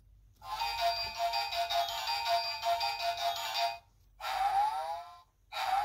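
Electronic jingle from a children's sound book's button speaker, a steady tinny melody lasting about three seconds, followed by two short sound effects that slide in pitch.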